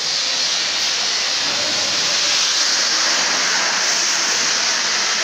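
Steady, loud hissing background noise, even throughout, with no distinct knocks or voices.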